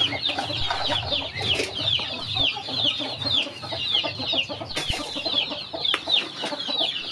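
A flock of young poultry peeping continuously, with short high peeps that slide downward, about three or four a second, over lower hen clucking. Two sharp knocks sound about five and six seconds in.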